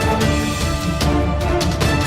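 Background music: a steady beat of percussion under held instrument notes.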